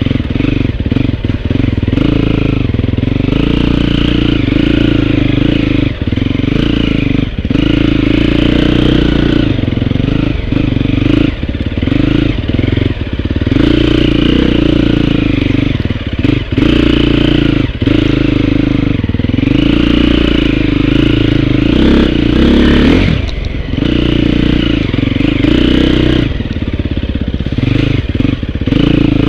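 Dirt bike engine under way, revving up and dropping off again and again, with frequent brief throttle chops as the rider works through the trail.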